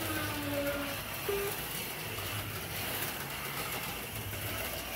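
HO-scale slot cars running laps on a four-lane track: a steady whir of their small electric motors.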